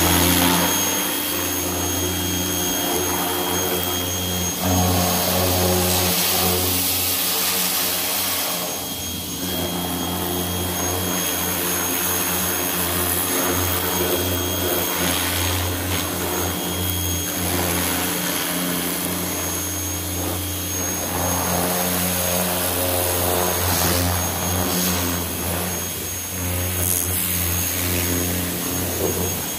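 Pressure washer running steadily, its motor holding a constant pitch with a thin high whine, while the hiss of the water spray swells and fades every few seconds.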